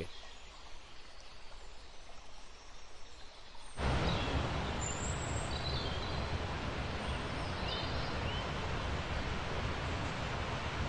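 Outdoor ambience: faint noise at first, then about four seconds in a steady, even rushing noise comes in suddenly, with a few faint, short, high chirps over it.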